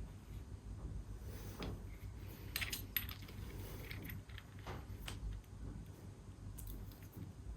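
Light metallic clicks and clinks of a wrench and socket on a small steel bolt as it is torqued up to 10 Nm, with a cluster of sharper clicks about three seconds in and a few more later.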